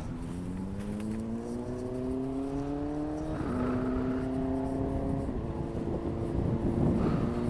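A motor speeding up, its pitch rising smoothly for about three seconds, then dropping a little and holding steady, over road and wind noise.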